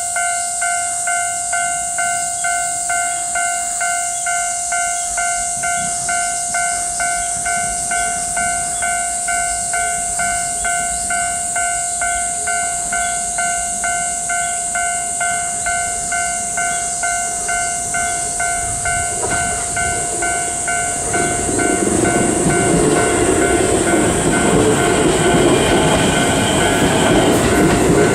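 Railroad crossing's warning bell ringing in a quick, steady, repeating ding. From about 21 seconds in, a train runs over the crossing, and its wheel and running noise grows louder toward the end. A steady high hiss lies behind it.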